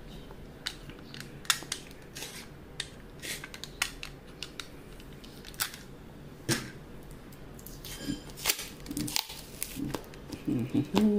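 Utility knife cutting through packing tape on a cardboard tube, with irregular short scrapes and clicks as the blade slits the tape and the tape is pulled open.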